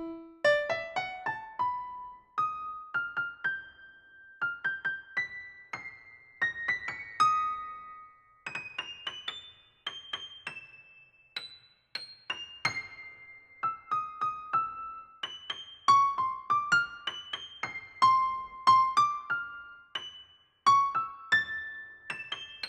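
Background piano music: single notes fading one after another, opening with a quick upward run, then a slow, high melody.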